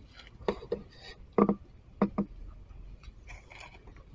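Short, crisp crunching clicks, about six in the first two and a half seconds, then a fainter rustle: a macaque biting and chewing a piece of raw cucumber.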